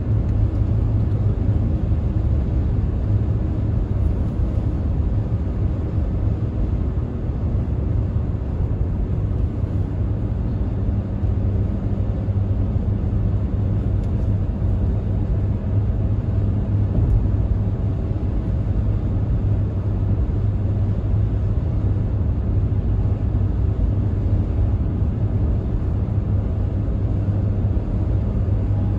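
Steady low rumble of a car driving at highway speed: engine and tyre road noise.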